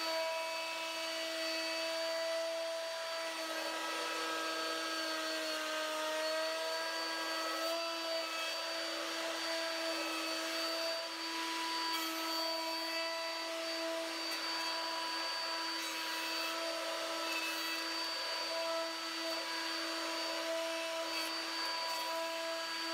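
Trend plunge router with a 2-inch flat end mill bit, running at full speed and cutting across the face of a cupped board on a router sled in a first flattening pass: a steady high whine with a haze of cutting noise, its pitch dipping briefly about five seconds in.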